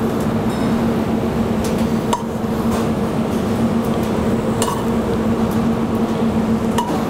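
Metal tongs clinking a few times against a skillet and plate as roasted carrots are lifted and set down, over a steady kitchen hum.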